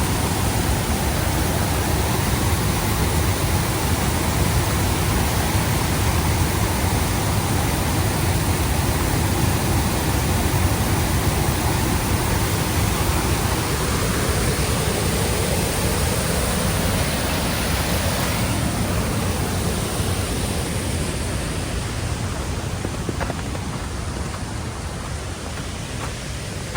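Waterfall's steady rush of falling water, an even, unbroken hiss. After about eighteen seconds it thins slightly at the top and grows a little quieter.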